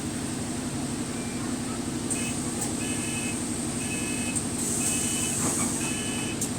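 Bus engine running steadily, heard from inside the cabin as a constant low drone. The bus is the one the uploader says has a slight exhaust leak. From about two seconds in, a short high electronic beep repeats several times.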